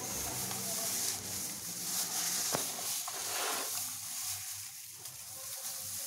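Dry straw rustling and crackling as gloved hands press and mix it into wet cement paste.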